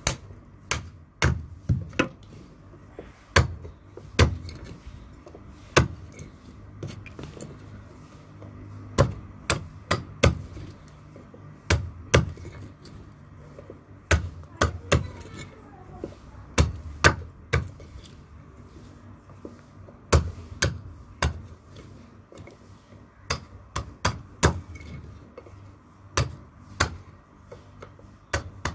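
A heavy iron blade chopping and shaving a small piece of wood held on a wooden chopping block. The strikes are sharp and irregular, often two to four in quick succession, with short pauses between.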